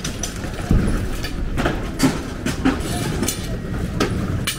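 A vehicle rumbling past, a steady low rumble with irregular clacks and knocks over it.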